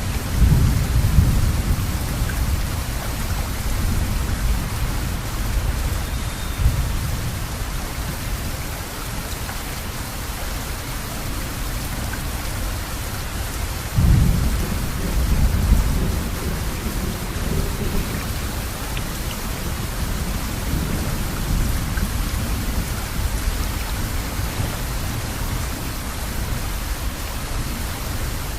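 Steady rain falling in a thunderstorm, with thunder rumbling low near the start and again about halfway through.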